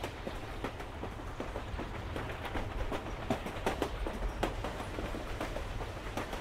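Inside a moving passenger train carriage: a steady low rumble with irregular clicks and knocks from the wheels and carriage.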